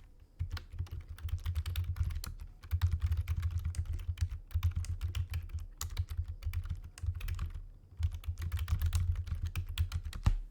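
Rapid, irregular clicking and tapping over dull low thumps on a desk, in about four runs separated by short pauses.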